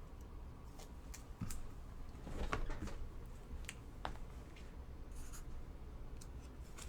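Trading cards being handled: faint rustling and scraping with a few light clicks, busiest about two and a half seconds in.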